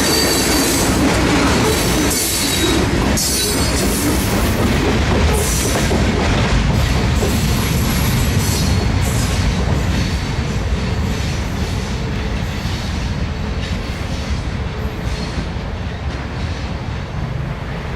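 Freight cars of a rock train rolling past, with steady wheel rumble and rail clickety-clack. High-pitched wheel squeal is strongest in the first few seconds, and the train grows slowly quieter as it moves away.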